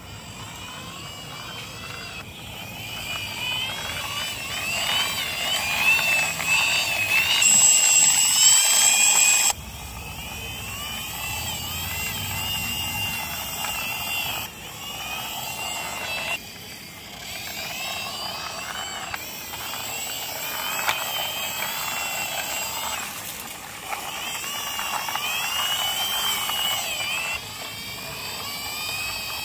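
Plastic toy truck pushed by hand along a concrete wall. Its wheels rolling on the rough top give a whirring whine that wavers up and down in pitch with the push. The whine stops and restarts abruptly several times.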